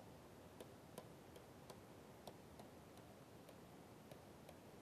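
Faint, irregular clicks, about two or three a second, of a stylus tapping on a pen tablet while handwriting, over a low hiss.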